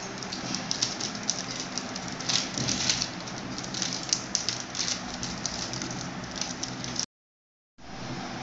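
Plastic powder packet crinkling and crackling as it is squeezed and shaken to empty henna powder into a glass bowl, a dense run of small crackles over a steady low hum. It cuts off suddenly about seven seconds in, followed by a brief dead silence.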